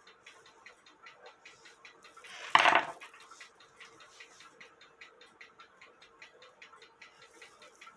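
Brass verge-escapement movement of an 1880 cuckoo clock ticking fast and evenly, about four to five ticks a second, on a test stand, with one loud metallic clink about two and a half seconds in.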